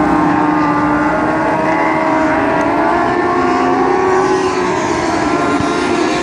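A pack of dwarf race cars with motorcycle engines running as they lap a dirt oval, several overlapping engine notes rising and falling slightly in pitch.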